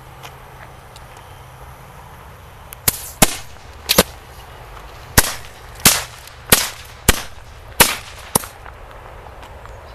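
Feistel Knallfrosch B, an old German jumping-jack firecracker loaded with flash powder, going off as a string of about ten sharp bangs. The bangs start about three seconds in and come roughly half a second to a second apart, each with a short echo.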